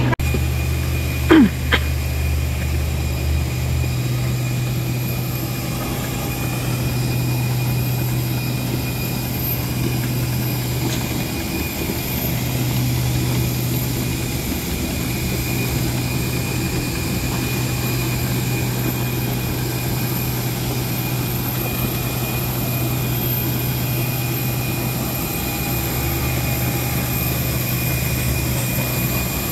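Steady jet aircraft noise on an airport apron: a constant low hum with a high, even whine. A short falling tone sounds about a second and a half in.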